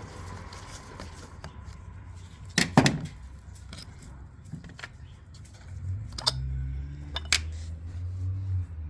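Small metal parts and tools clinking and clattering as carburettor parts are handled, a few sharp clicks, the loudest about three seconds in, over a low steady hum.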